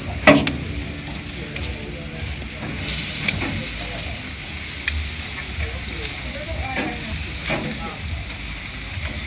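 Food sizzling over heat, a steady hiss with a few sharp pops or clicks.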